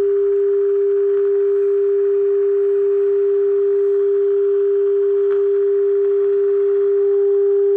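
Steady 400 Hz test tone from the signal generator's modulation, demodulated and played through the 1937 Philips 461A valve radio's loudspeaker over a faint hiss. Near the end it grows slightly louder and a faint overtone appears as the RF coil is tuned toward its peak.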